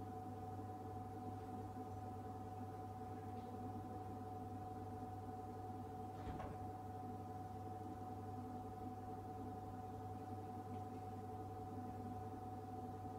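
Refrigerated drinks vending machine running with a steady hum: a low drone with a steady mid-pitched tone over it. A faint tick about six seconds in.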